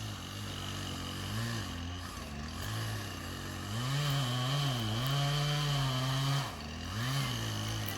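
Chainsaw engine running and revving up and down, with a longer, louder high-revving stretch about halfway through that drops back sharply.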